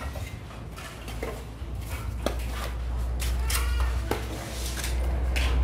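Fired clay bricks knocking and clinking against each other as they are picked from a pile, several sharp strikes, some ringing briefly, over a steady low rumble.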